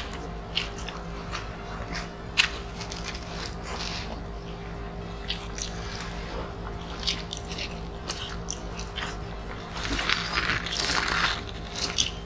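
Close-miked eating of grilled chicken and rice by hand: chewing and mouth noises with many short, sharp clicks scattered throughout, busier for about a second and a half near the end.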